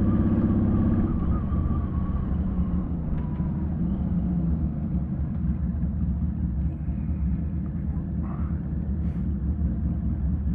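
Honda Valkyrie's 1520 cc flat-six engine running steadily through Cobra six-into-six exhaust pipes, a deep, even engine note that eases off a little about a second in.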